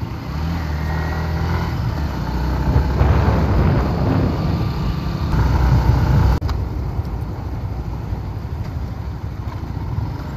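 Yamaha Sniper 150 motorcycle's single-cylinder engine under way, pulling louder for about six seconds, then dropping off sharply and running on steadier, with road and traffic noise.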